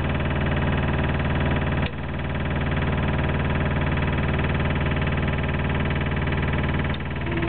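Engine of a Flow Tex HDS13 horizontal drilling rig running steadily. There is a brief drop in level with a click about two seconds in and again near the end.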